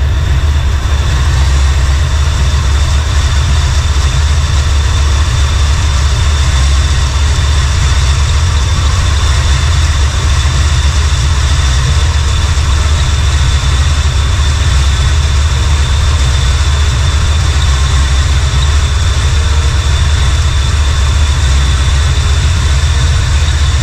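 Chevrolet C10 pickup's engine idling steadily, with a thin steady high tone over it. It is running so the coolant can be added and the cooling system burped.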